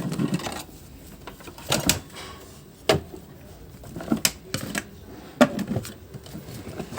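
Scattered sharp clicks and knocks from handling the Philips FC8950 vacuum cleaner's body as it is being opened up.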